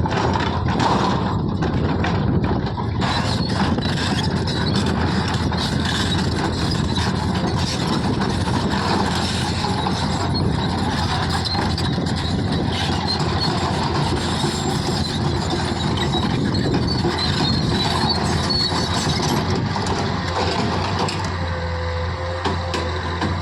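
A heavy earthmoving machine working: its diesel engine runs continuously under many short metallic clanks and knocks. For the last couple of seconds it settles into a steadier low hum.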